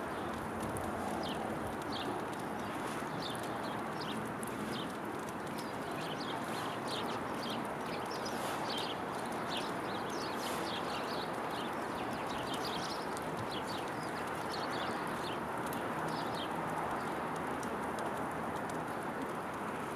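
Small birds chirping, many short high calls in quick flurries, over a steady background rush.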